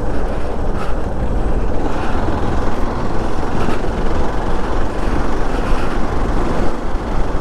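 Wind rushing over the rider's microphone together with the motorcycle's engine and road noise, a steady, loud roar while riding at speed.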